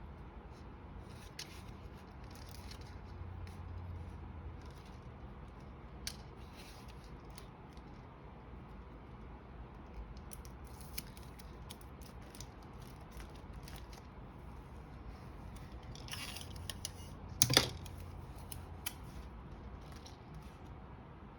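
Quiet crafting handling sounds: scattered small snips, rustles and taps of scissors and tape while fairy lights are taped down. One sharp click, the loudest sound, comes about three-quarters of the way through.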